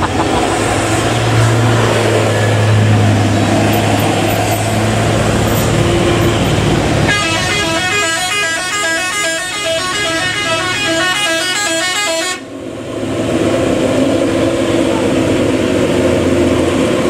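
Heavy vehicles' diesel engines running on a steep mountain hairpin. About seven seconds in, a multi-tone vehicle horn sounds a fast repeating pattern of notes for about five seconds, then cuts off suddenly, and the engines are heard again.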